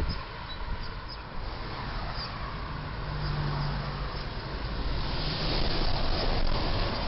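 Road traffic: cars driving past, growing louder near the end as a box truck approaches.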